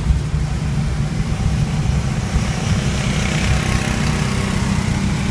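Car cabin noise while driving on a rain-soaked road: a steady low rumble of engine and tyres under an even hiss of wet-road spray and rain, the hiss swelling a little about three seconds in.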